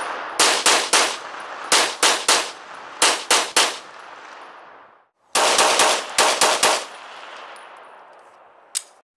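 Semi-automatic handgun fired in quick strings of three or four shots, about four a second, each shot trailing off in echo; a longer string of about six follows a brief cut, and a single shot comes near the end.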